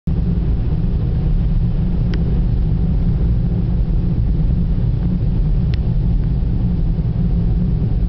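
Steady low rumble of a car driving on a snow-covered road, heard from inside the car: tyre and engine noise. Two brief clicks come through about two and six seconds in.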